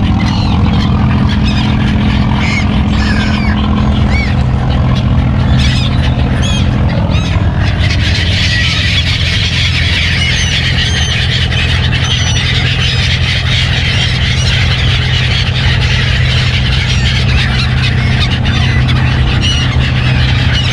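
A flock of gulls squealing and calling as they crowd in for thrown bread, over a steady low mechanical hum. Scattered calls at first grow into a dense, constant clamour about eight seconds in.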